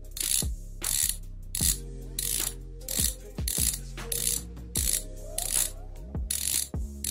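Semi-sealed BMX cassette hub's freewheel pawls clicking against the ratchet in short buzzing bursts, about one every half second or so, as the driver is turned. Background music with deep bass tones plays underneath.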